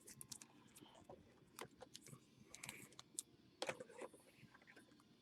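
Faint, irregular light clicks and taps, a few a second, the sharpest about a second and a half in and again a little after three seconds.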